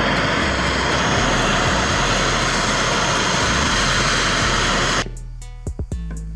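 Handheld gas torch burning with a steady hiss as its flame heats the hub of a harmonic balancer. It cuts off suddenly about five seconds in.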